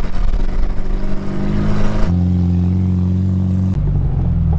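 Suzuki Samurai's small four-cylinder engine pulling hard under load on sand, steady and loud. A heavy rush of wind and driving noise covers the first two seconds, and the engine note jumps abruptly to a new pitch about two seconds in and again near the end.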